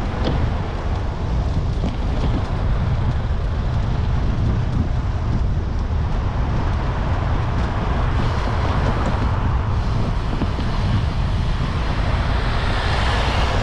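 Steady low rumble of vehicle and road noise, with some wind noise on the microphone.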